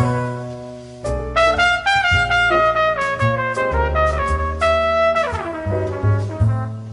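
Instrumental music: a lead instrument plays a melody of short held notes, with downward sliding phrases about five seconds in, over a steady bass line.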